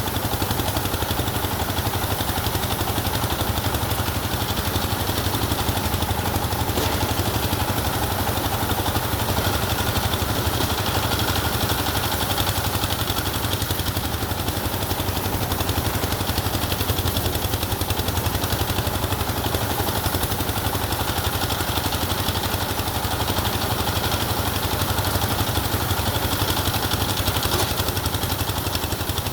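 An engine running steadily at constant speed, with a fast low throb.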